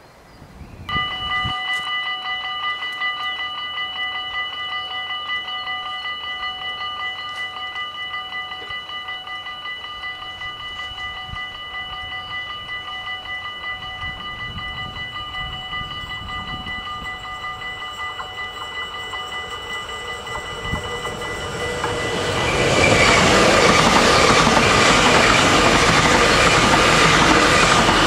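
Railway level-crossing bells ringing steadily with several fixed tones. From about 21 s in, an NS electric commuter train passes over the crossing and its running noise swells loudly over the bells.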